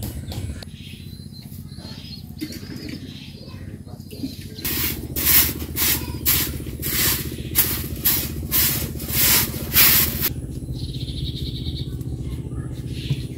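Broom sweeping the earthen floor: about eight swishing strokes, roughly one every 0.7 seconds, starting about five seconds in.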